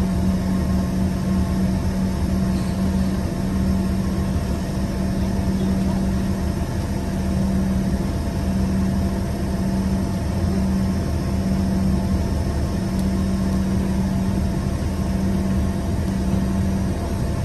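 Steady cabin noise inside an Embraer ERJ-145 regional jet: an even rush of jet engine and air noise under a constant low hum, with no changes.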